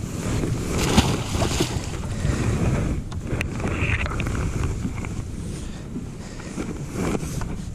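Wind buffeting the microphone over the low rumble of a boat on open water, with a few sharp knocks about one and three seconds in.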